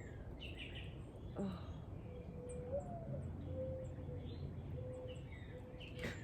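Small songbirds chirping and calling in short, scattered notes around backyard bird feeders, over a steady low background rumble.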